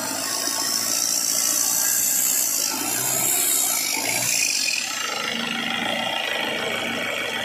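Mahindra Major jeep's diesel engine running just after a cold start, its first run in four years, with a harsh rasp. It runs louder for the first few seconds, then drops back to a steadier idle about five seconds in.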